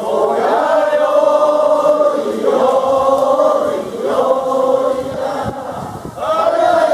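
Group of men chanting together in long held, sung notes, in about four phrases with short breaks between them.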